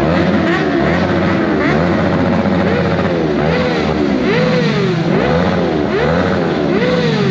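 Motorcycle engines revved over and over in quick throttle blips, the pitch climbing and dropping about one and a half times a second, with several bikes overlapping.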